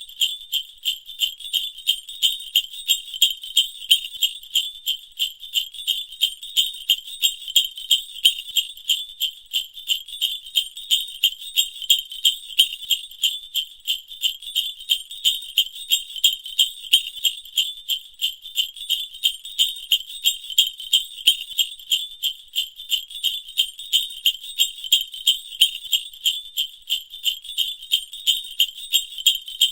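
Sleigh bells sound effect from the Voice Changer Plus app: bells jingling in a steady, even shaking rhythm. The sound is thin and high, with no low end.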